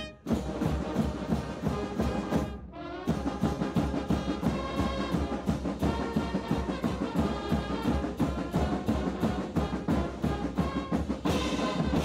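Military brass band playing a quick march: trombones, trumpets and sousaphones over a steady beat of bass drums and side drums. The music drops away briefly about two and a half seconds in, then picks up again.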